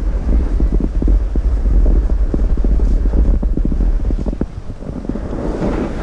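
Wind buffeting the microphone: a heavy low rumble with irregular crackling through it, easing slightly near the end.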